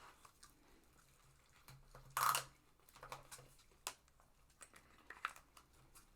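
Quiet eating and food-handling sounds: scattered soft clicks and rustles of takeout food and packaging, with one louder brief rustle about two seconds in.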